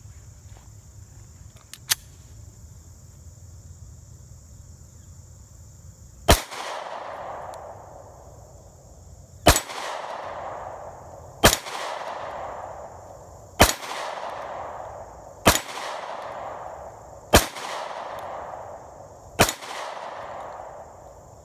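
Beretta Nano 9mm subcompact pistol fired seven times, slow aimed shots about two seconds apart, each shot trailing off in an echo. A single sharp click comes about two seconds in, before the shooting.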